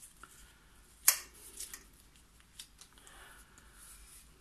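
Paper and a laminated plastic tag handled and pressed down by hand on a cutting mat: one sharp click about a second in, then a few light taps and soft paper rustling.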